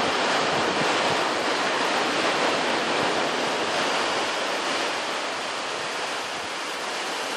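Steady rush of ocean surf breaking and washing up a beach, with some wind noise on the microphone, easing a little toward the end.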